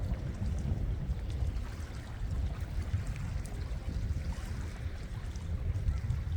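Wind buffeting the phone's microphone in an uneven low rumble, with a faint hiss of sea water beneath it.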